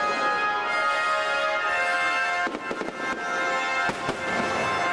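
Aerial fireworks bursting with sharp bangs over loud show music; a cluster of bangs comes about two and a half seconds in and another about four seconds in.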